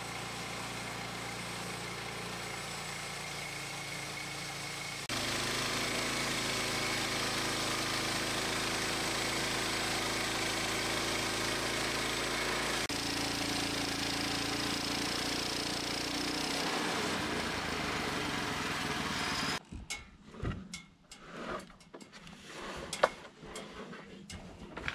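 Engine of a Woodland Mills portable bandsaw sawmill running steadily as its band blade cuts through a log, stepping up louder about five seconds in. It cuts off abruptly near twenty seconds, giving way to scattered knocks and clunks of sawn wood being handled.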